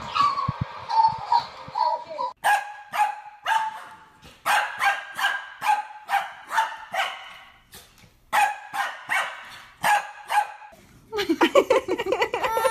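A small dog barking over and over in short, sharp yips, in quick clusters with brief pauses between them. Near the end a longer, wavering cry starts up.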